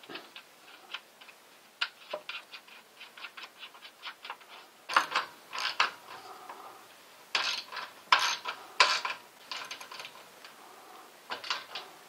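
A ratchet clicking rapidly as the nut is run down onto a new dryer drum roller's shaft. Several louder metallic clanks and scrapes come from the tool and the bulkhead in the second half.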